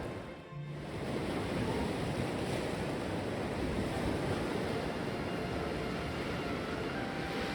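Sea waves breaking and washing up on a beach in a steady rush, with some wind on the microphone.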